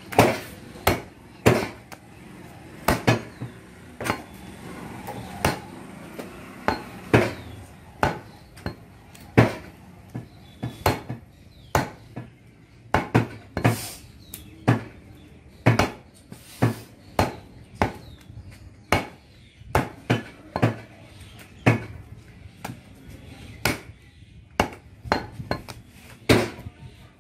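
Butcher's cleaver chopping goat meat on a round wooden chopping block: irregular sharp chops, about one or two a second, some in quick pairs.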